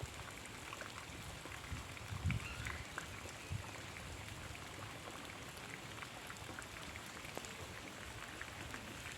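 Steady rain falling, with scattered drops ticking on surfaces and a few soft low thumps.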